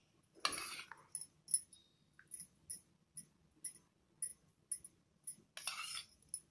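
A steel spoon spreading tomato ketchup on bread slices on a steel plate: light clinks about twice a second, with two longer scrapes, one about half a second in and one near the end.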